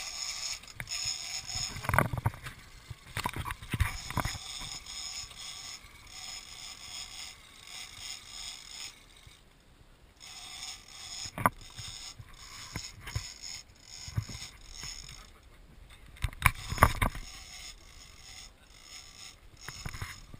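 Big-game fishing reel being cranked: a steady mechanical whirring that pauses briefly twice. Several sharp knocks and thumps come through it, the loudest a cluster near the end.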